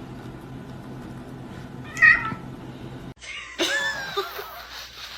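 A pet's high-pitched cries: one short, loud, meow-like cry about two seconds in, then after an abrupt cut a series of wavering, pitch-bending cries with a few clicks, over a low steady hum at first.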